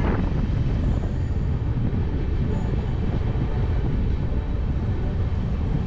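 Steady low rumble of the Howrah Rajdhani Express running along a station platform as it pulls into the station.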